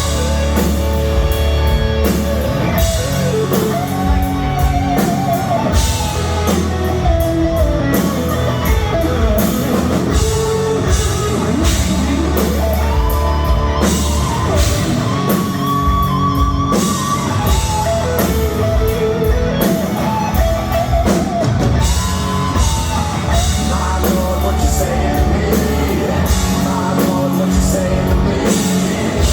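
Live rock band playing an instrumental break: a lead electric guitar line with bending, gliding notes over bass and drum kit.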